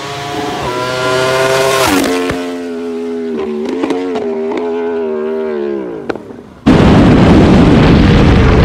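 A motorcycle engine accelerates past the roadside, its pitch climbing and then dropping sharply about two seconds in as it goes by, then holding and fading away. Near the end it cuts abruptly to very loud wind rush and engine noise from a camera mounted on a Yamaha sportbike at speed.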